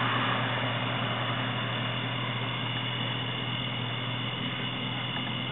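Steady low hum with an even hiss from an idling truck engine. There is no siren, only the constant drone.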